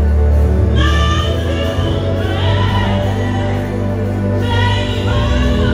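A woman sings a gospel worship song into a microphone with live band backing that includes a steady electric bass line. Her phrases carry long held notes, with short breaks between them.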